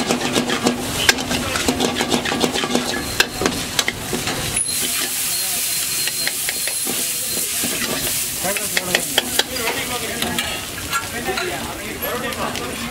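Metal ladle scraping and clanking against a black iron kadai as egg, onion, tomato and curry leaves sizzle over a gas flame, with quick repeated clicks of stirring throughout. The frying hiss grows stronger about five seconds in.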